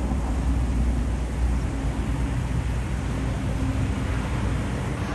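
A vehicle travelling on the road: a steady low engine hum under even road noise.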